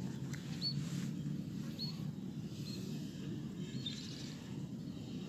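Short high chirps repeating about once a second, a small bird calling, over a steady low background noise.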